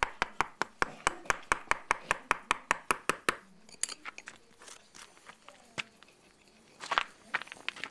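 Hammer blows on a steel point chisel cutting into stone, a quick even run of about six strikes a second that stops a little over three seconds in. A few scattered taps follow, with a short cluster of blows near the end.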